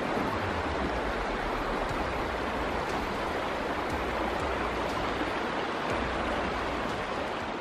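Shallow river water rushing over boulders in a riffle: a steady rush, starting to fade near the end.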